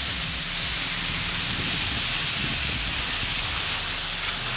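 Steady sizzling of sliced onions, green chillies and freshly added tomatoes frying in hot oil in a large wok.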